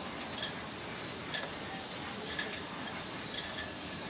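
A cloth being rubbed by hand over a boat's painted hull to clean off polish: faint short swishes about once a second over a steady background hiss with a faint high steady tone.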